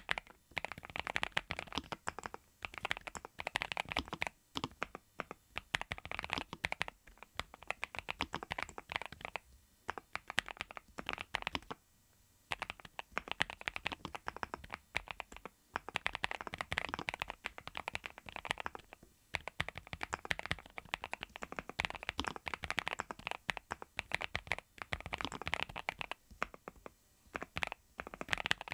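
Fast typing on a NuPhy Halo75 V2 mechanical keyboard with Raspberry switches: a dense stream of soft keystroke clacks, the "koto-koto" sound of the Halo series, in runs broken by brief pauses.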